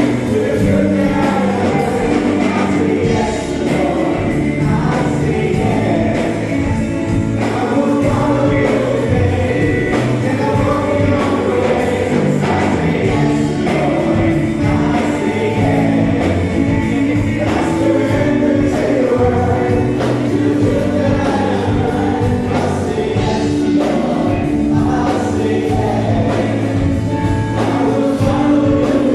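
Gospel-style choir singing over a band with a steady beat, mixed through a live sound system; it cuts off abruptly at the end.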